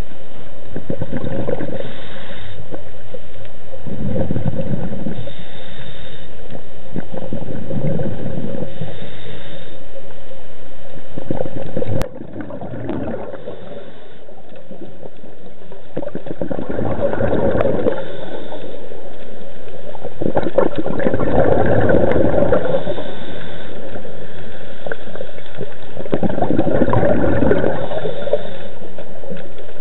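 Scuba diver's regulator breathing heard underwater: exhaled bubbles gurgling in bursts every few seconds. The sound breaks off suddenly about twelve seconds in and swells back.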